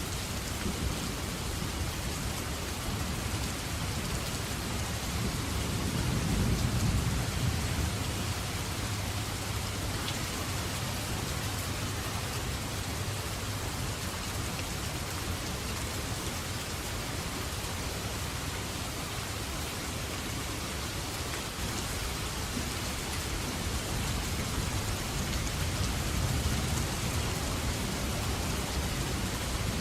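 Steady heavy rain falling, with a low rumble of distant thunder swelling about six seconds in and again faintly near the end.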